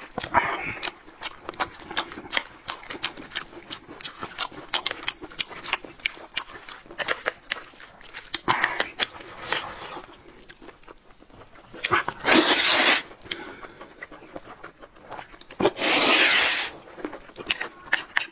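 Close-miked eating: wet chewing and many small clicks of chopsticks on plates, with two loud slurps of noodles, each about a second long, about two-thirds of the way in and again near the end.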